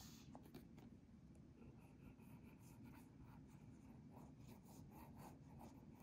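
Near silence with faint small ticks and light rubbing: a plastic squeeze bottle of white glue being handled and squeezed over cardstock.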